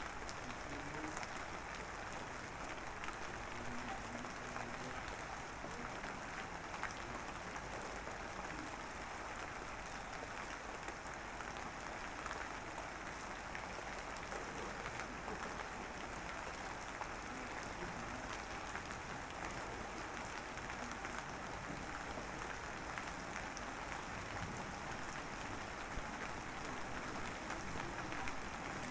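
Light drizzle falling, a steady soft patter of many fine drops.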